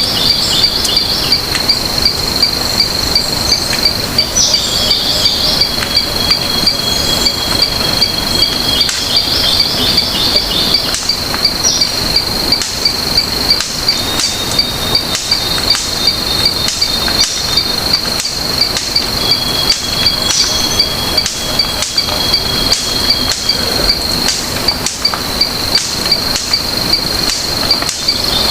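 Insects trilling in a steady high-pitched pulsing chorus, with sharp regular clicks about twice a second and a few long thin whistles.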